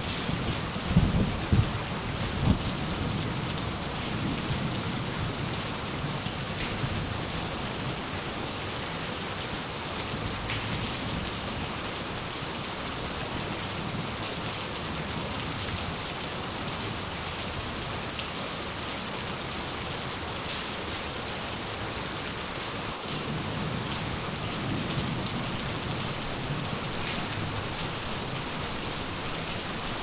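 Steady rain falling, with low rolls of thunder. The thunder peaks twice in the first few seconds and rumbles again more softly in the second half.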